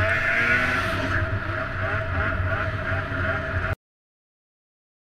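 Snowmobile engine running with a steady engine note, picked up on the rider's helmet camera. It cuts off abruptly about three and a half seconds in, leaving silence.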